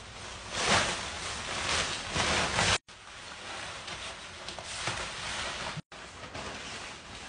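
Rustling and crinkling of a nylon inflatable Minion costume being handled and shaken out, in uneven bursts that break off abruptly twice.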